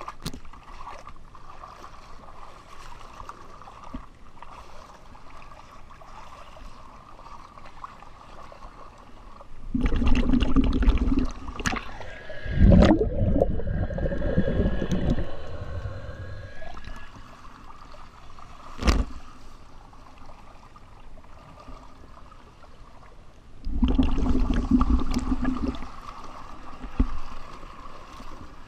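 Water sloshing and splashing against a camera at a boat's waterline as a hull-cleaning tool is pushed along the hull. Two loud stretches of rushing water, about ten and twenty-four seconds in, with a sharp knock in between.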